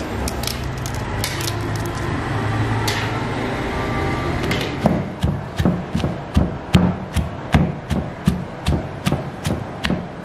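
Wooden pestle pounding in a wooden mortar, crushing chilies, garlic, shallots and peppercorns: regular thuds about two to three a second, starting about five seconds in after a stretch of steady background noise.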